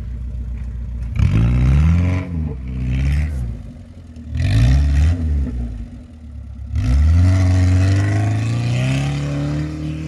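Lada Niva's engine revving hard under load in deep loose sand. After a steady low run it surges twice, each time rising and falling back, and near the middle it goes into a third, longer rev that climbs and holds.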